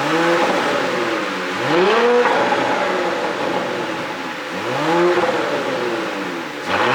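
Porsche Cayenne E-Hybrid's 3.0-litre turbocharged V6 exhaust, fitted with an ECU pop tune, being blipped in free revs: the engine note rises and falls back several times, about every two to three seconds.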